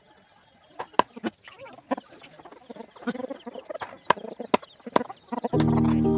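Large knife chopping raw chicken on a wooden stump: a series of sharp knocks, one or two a second, with hens clucking nearby. Loud music comes in near the end.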